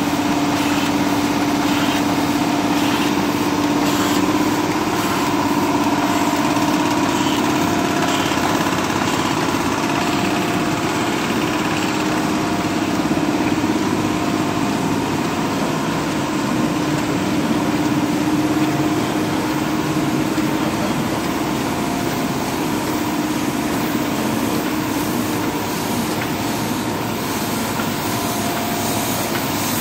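1985 Heidelberg MOF-H sheetfed offset printing press running steadily: a continuous mechanical noise with a constant low hum, no change in speed.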